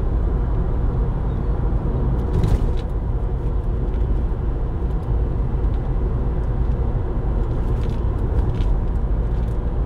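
Steady low rumbling background noise with no change in level, and a few faint light clicks, one about two and a half seconds in and a few near the end.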